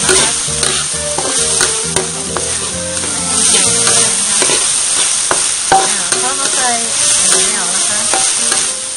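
Minced pork sizzling in a hot wok while a metal spatula stirs and scrapes it around the pan, with repeated clinks and scrapes of the spatula against the metal.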